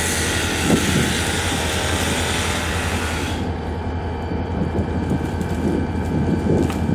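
An engine running steadily with a low hum, under a hiss that cuts off abruptly about three and a half seconds in, with scattered rustling.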